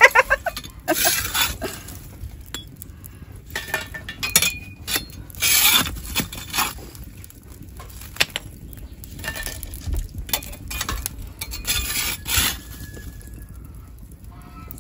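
Hot charcoal being shovelled onto the lid of a cast-iron Dutch oven: scattered metallic scrapes and clinks, with a few longer scraping bursts.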